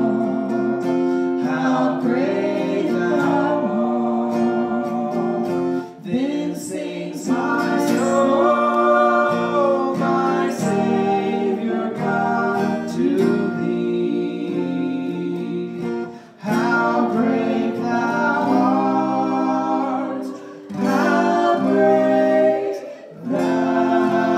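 Hymn sung by a man with women's voices in harmony, accompanied by a strummed acoustic guitar. The singing comes in phrases with brief breaths between them.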